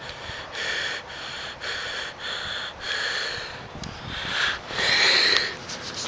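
A person breathing hard in short, rhythmic breaths, about one every half second, growing louder near the end.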